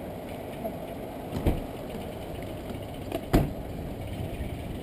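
A steady, low engine rumble, broken by two sharp knocks, one about a second and a half in and a louder one about three and a half seconds in.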